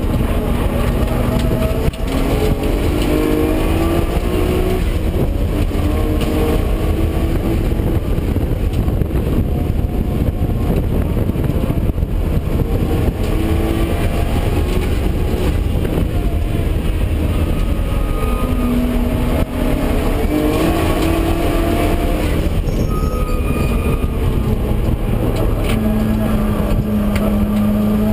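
Nissan R32 Skyline GT-R's twin-turbo straight-six heard from inside the cabin under hard driving, the engine note climbing again and again and dropping back as it works up through the gears and lifts for corners, over a heavy low rumble of road and wind noise.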